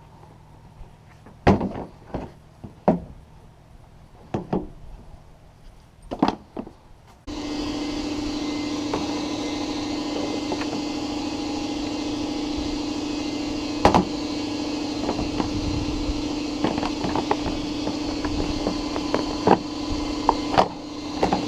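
Scattered clicks and knocks of parts being handled. About seven seconds in, a steady machine noise with a constant hum switches on abruptly and keeps running, with more knocks over it.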